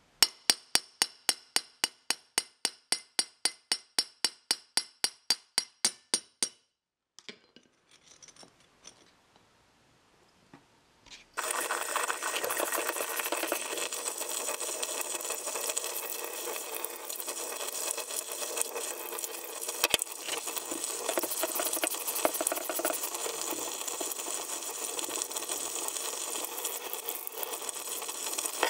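Metal being struck in a steady run of sharp, ringing taps, about four a second, for some six seconds. After a few faint knocks, a power tool starts about eleven seconds in and runs steadily with a harsh, rough sound.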